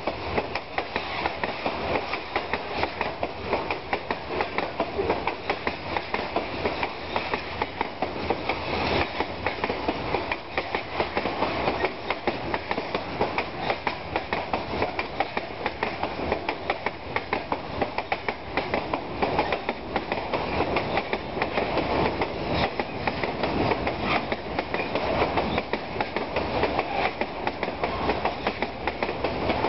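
Freight wagons of a fast metre-gauge freight train rolling past, steel wheels clattering steadily over the rail joints in a rapid clickety-clack.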